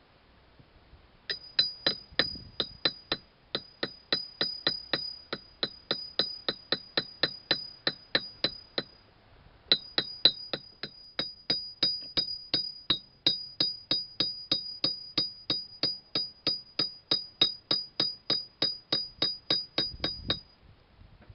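Rapid, evenly spaced metallic clinks, about three to four a second, each with a short high ring, from steel vise parts being worked during assembly. They stop for about a second midway, then carry on until near the end.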